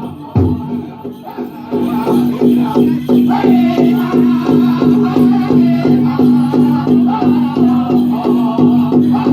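Powwow drum group playing a chicken dance song: a few slow, heavy drumbeats on the big drum, then, just under two seconds in, a fast steady beat of about three strokes a second. Men sing over the beat, with a jingling rattle.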